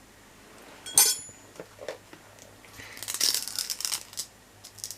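Small accessory pieces and plastic packaging being handled: a sharp click about a second in, then crinkling plastic rustling for about a second.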